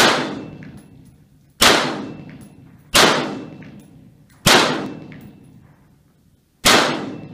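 AR-15 pistol in 5.56 fired five times in slow semi-automatic fire, about one and a half seconds apart. Each shot is a sharp crack that trails off in echo.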